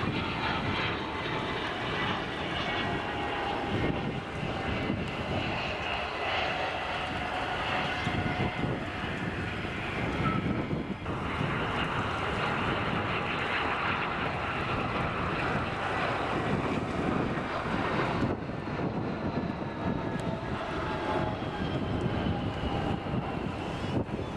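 Turbofan jet engines of landing aircraft: a steady engine noise with several high whining tones that slowly fall in pitch, over wind rumble on the microphone.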